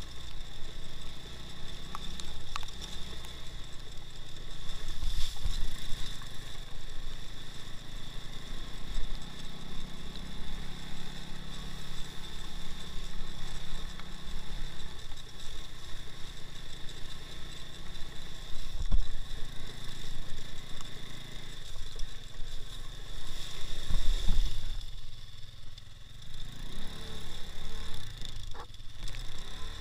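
Engine of a two-wheel-drive off-road motorcycle running steadily, heard from on the bike, with a few sharp knocks and clatters in the second half.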